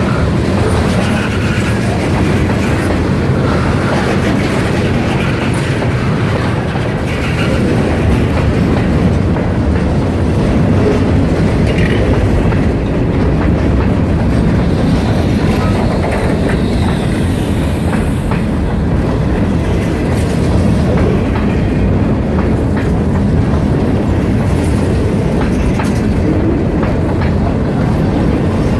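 Freight train rolling past, its cars' wheels clicking over the rail joints in a steady, continuous rumble.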